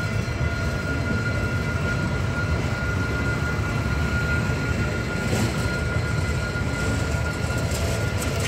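Diesel locomotive running with a steady low rumble and a thin, constant high tone over it.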